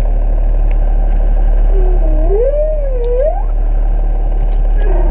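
Whale song: a long call that glides up, down and up again in pitch about two seconds in, and another beginning near the end, over a steady low rumble.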